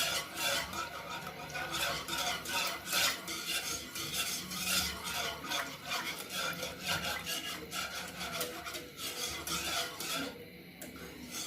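A spoon stirring and scraping in a pot of sugar and water as the sugar dissolves: repeated scraping strokes, briefly quieter near the end.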